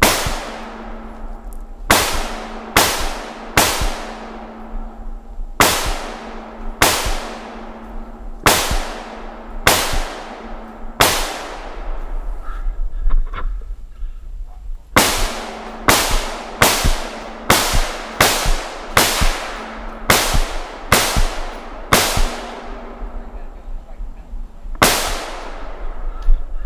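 Rifle firing single aimed shots about one a second, some twenty in all, with each shot echoing briefly. The shots come in two strings with a pause of a few seconds between them, and one more shot follows near the end.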